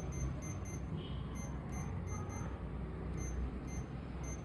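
Keypad of an mSwipe card payment terminal beeping as an amount is keyed in: about ten short, high beeps at an uneven pace, over a steady low hum.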